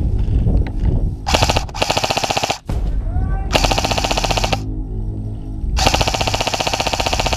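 Airsoft electric rifle (AEG) firing three bursts of rapid full-auto fire, each about a second long, the first about a second in and the last the longest.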